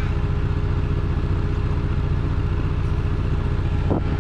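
A ride-on miniature railway locomotive running steadily along the track, its motor giving a low, evenly pulsing drone.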